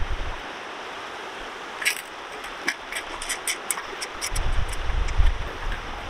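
Steady rush of a flowing river, with scattered small clicks and taps as hands tighten the wing nuts on an aluminum folding sluice box. A low rumble comes in about four seconds in.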